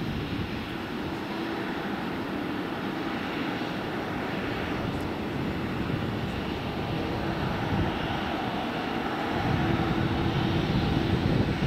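Aircraft engines running: a steady noisy rumble with a held hum, the low rumble growing louder about nine seconds in.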